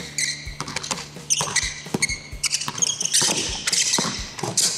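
Basketball dribbled on a hardwood court, with a string of quick bounces, and sneakers squeaking sharply on the floor as the players cut and drive.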